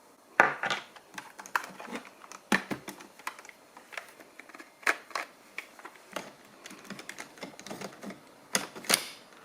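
Irregular clicks and knocks of hard plastic as Dyson V6 cordless vacuum parts are handled and fitted back together, with the loudest knocks about half a second in and near the end.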